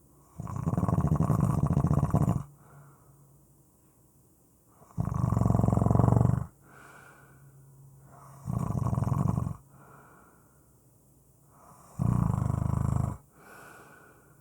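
Loud snoring: four long snores, each about one to two seconds, spaced a few seconds apart, with quieter breaths between them.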